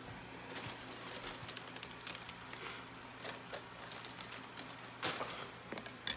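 Irregular small clicks and rustles of handling things at close range, over the steady hum of a fan.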